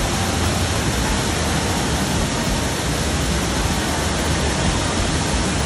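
Steady rush of churning whitewater and water cascading down the channel walls of a river rapids ride.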